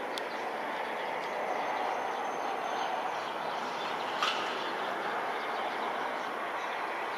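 Steady distant roar of a regional jet's two turbofans as it descends on final approach with the gear down. A single sharp click comes about four seconds in.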